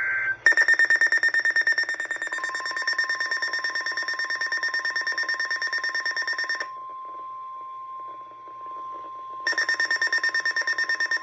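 A weather radio alarm beeping rapidly on a high tone, pausing for about three seconds past the middle and coming back near the end. Under it, from about two seconds in, is the steady single tone of the NOAA Weather Radio 1050 Hz warning alert, which signals an incoming severe thunderstorm warning.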